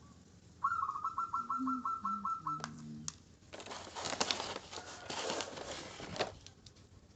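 A bird's rapid trilled call, about six notes a second for two seconds. About a second later comes roughly three seconds of crinkly rustling, like packaging being handled.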